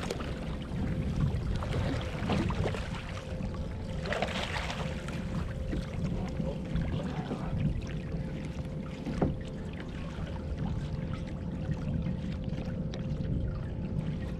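Water splashing and sloshing around a fishing kayak, with wind rumbling on the microphone. There is a sharp knock about nine seconds in.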